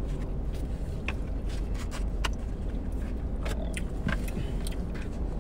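Eating sounds: chewing, and a plastic fork clicking and scraping against a foam takeout container a handful of times, over a steady low rumble in the car cabin.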